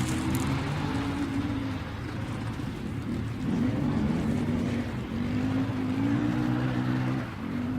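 Off-road vehicle engine running, its pitch rising and falling as it revs about halfway through, with a short drop in level near the end.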